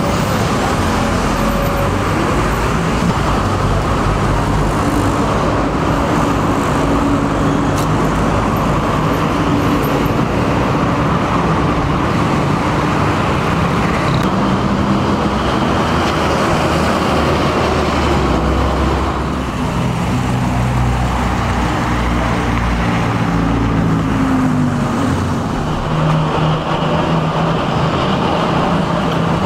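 City street traffic: bus and car engines running and passing, a steady rumble with engine hum that dips briefly about two-thirds of the way through.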